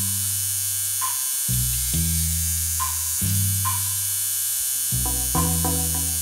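Tattoo machine buzzing steadily as it works ink into the skin, over background music of low held notes that change about every second and a half.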